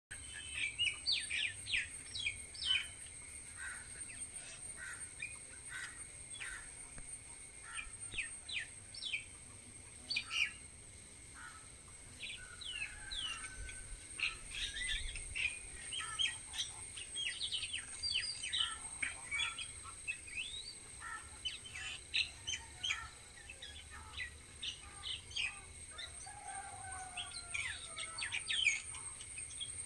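Several birds chirping and calling in quick, short notes and trills, over a steady high-pitched whine.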